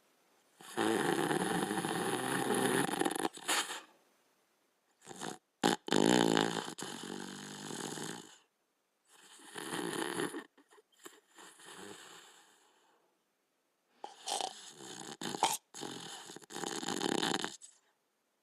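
Border collie snoring in its sleep: a series of snores, each one to three seconds long, with short quiet pauses between them.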